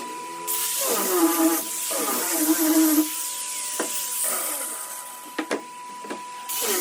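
Random orbital sander running against wood in two passes, a motor hum with a hiss of abrasion; the hum sags in pitch as each pass begins. A few sharp clicks fall in the gap between the passes.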